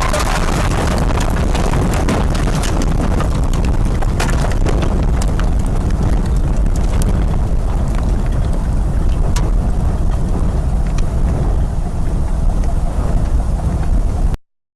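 Storm wind blowing hard and buffeting the microphone: a heavy, steady rumble with scattered sharp ticks and knocks. It cuts off abruptly near the end.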